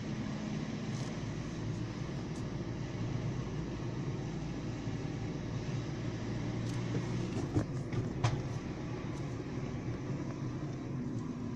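Car driving slowly, heard from inside the cabin: a steady low engine and road hum, with a few sharp clicks about two-thirds of the way through.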